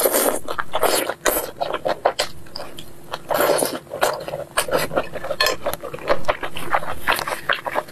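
Close-miked eating: food pulled off bamboo skewers with the teeth, then wet chewing and lip smacking, full of short sharp clicks at an irregular pace.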